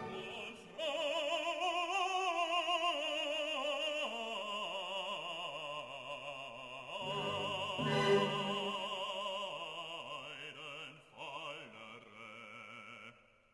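Background music: classical operatic singing, one voice held on long notes with strong vibrato. It fades out just before the end.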